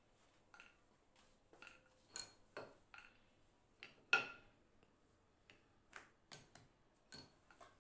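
Wooden rolling pin knocking and clattering on a countertop while chapati dough is rolled out: an irregular string of sharp knocks and clicks, a few with a short ring.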